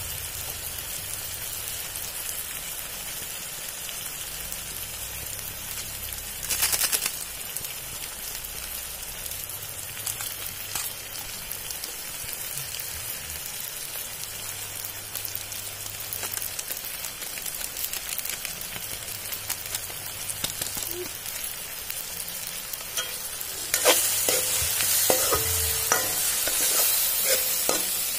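Chopped onions and tomatoes sizzling in hot oil in a metal kadai, a steady frying hiss with a brief louder spell about a quarter of the way through. Near the end a steel spoon stirs and scrapes the pan, louder, with small clicks.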